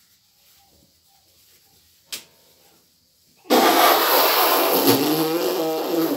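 A long, loud nose blow into a large cloth handkerchief, noisy with a wavering honk in it, starting suddenly and lasting almost three seconds. A single short click comes about two seconds in, before it.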